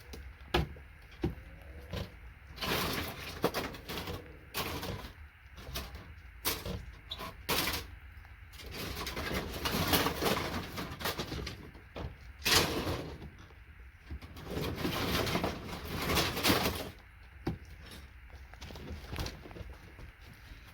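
Components being pried and snapped off a circuit board with hand tools: a string of sharp clicks and cracks, with several stretches of scraping a second or two long.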